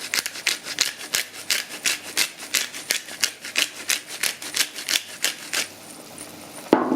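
Pepper mill being twisted, grinding peppercorns in a fast, even run of rasping strokes, about five to six a second, which stops about a second before the end. Then a single knock.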